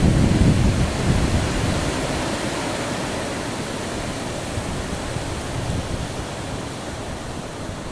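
Mountain wind blowing over the microphone: a gust with heavy low buffeting at first that gradually eases to a steadier, softer rush.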